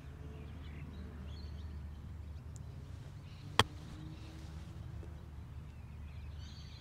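A single crisp click of a wedge striking a golf ball on an open-faced chip shot, about halfway through, struck cleanly. Steady low background hum throughout.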